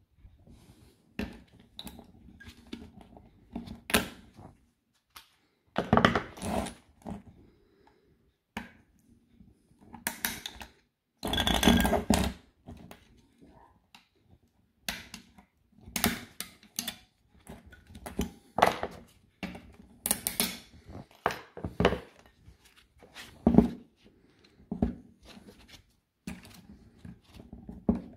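Irregular metal clicks, snaps and scrapes as spot-welded nickel connector strips are pried and torn off the 18650 cells of a DeWalt Flexvolt battery pack with pliers and a thin metal tool, against the plastic cell holder. A longer rasping scrape comes near the middle.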